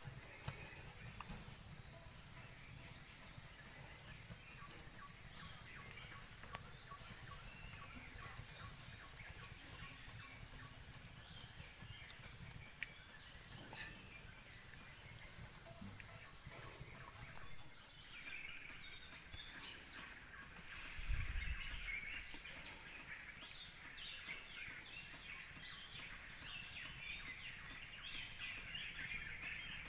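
Rural outdoor ambience: many small bird chirps, thickest in the second half, over a steady high-pitched drone and a low rumble, with one short low bump a little after twenty seconds.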